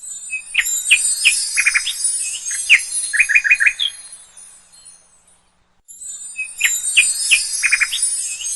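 Small birds chirping and twittering in a dense chorus, with quick repeated chirp notes. The birdsong fades out about five seconds in, then the same recording starts again after a short gap.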